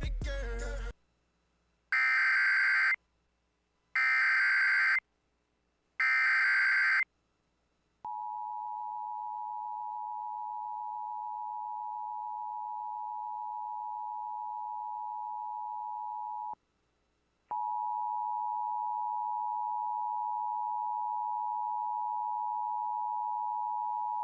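Emergency Alert System tones marking the start of a tornado warning relay. Music cuts off within the first second, followed by three one-second SAME header data bursts two seconds apart. The steady two-tone EAS attention signal then begins about eight seconds in, breaks off for about a second partway through, and resumes.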